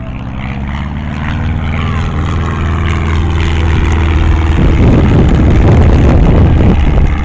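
Propeller aircraft engine running and growing steadily louder as it comes closer, with a rougher, heavier rumble from about halfway through.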